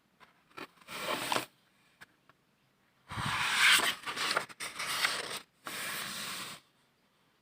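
Close-up rubbing and rustling handling noise in three bursts: a short one about a second in, a longer, louder one from about three seconds, and a last one near the end.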